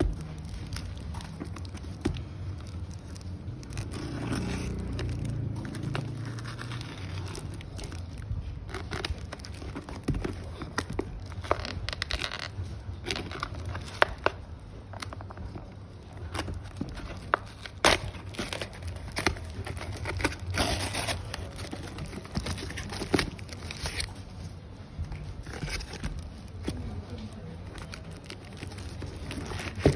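A taped cardboard parcel being cut and torn open by hand: packing tape ripping, cardboard scraping and plastic crinkling, with many scattered sharp clicks and taps.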